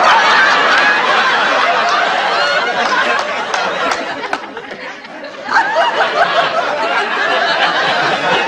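Sitcom studio audience laughing, a big wave that eases off about five seconds in, then a second burst of laughter.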